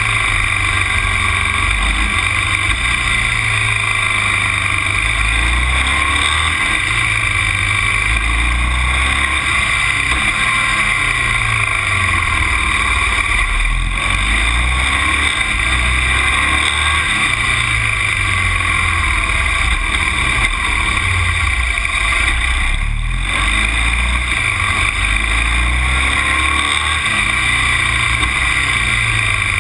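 A vehicle on the move, heard through an action camera: steady engine and road noise with a low rumble that swells and fades.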